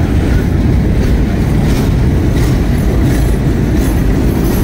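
Freight train boxcars rolling past, a loud steady rumble of steel wheels on rail with occasional clicks from the wheels.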